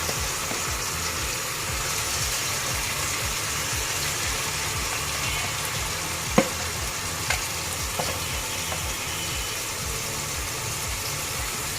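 Raw rice and mung and masoor lentils frying in hot oil in a karahi, a steady sizzle. Three sharp clicks about six, seven and eight seconds in.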